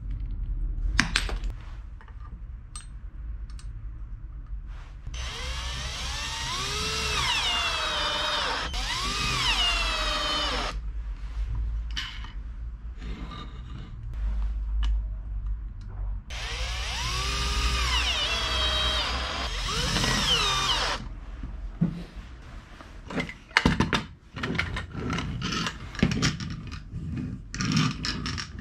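Electric drill running in two bursts of about five seconds each, its pitch rising and falling several times. Sharp knocks and clicks follow near the end.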